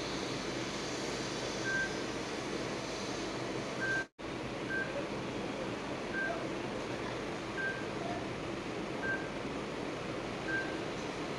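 Steady hiss with a short, high electronic beep repeating every second or two. The sound cuts out completely for a moment about four seconds in.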